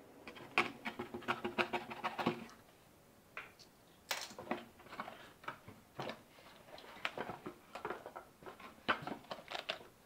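Cardboard box being handled by hand: flaps scraping, rustling and tapping in a quick run of small knocks for the first couple of seconds, then scattered ones after a short pause.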